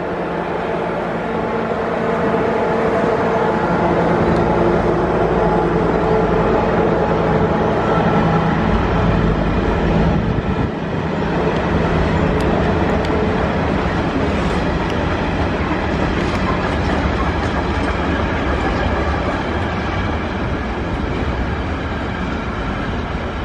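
Freight train of empty flat stake wagons rolling past, wheels clattering on the rails. A steady hum sits under the clatter through the first ten seconds and then fades.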